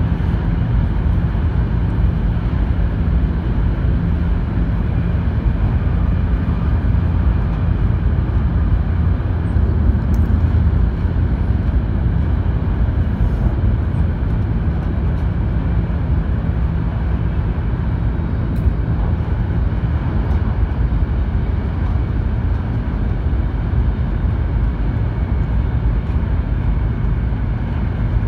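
Running noise of an E2 series Shinkansen at speed, heard inside the passenger cabin: a steady low rumble of wheels, track and air.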